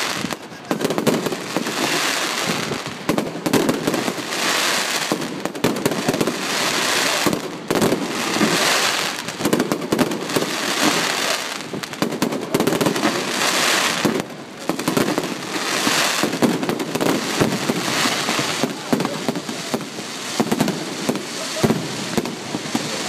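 Fireworks display: aerial shells bursting one after another, a dense run of sharp bangs and crackles that swells and dips every second or two without a pause.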